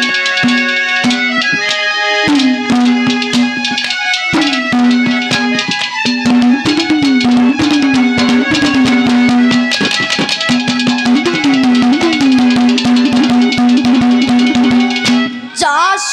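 Ragni folk music played as an instrumental interlude: a fast, dense hand-drum rhythm over held pitched tones. The drum's low note swoops up and back down several times.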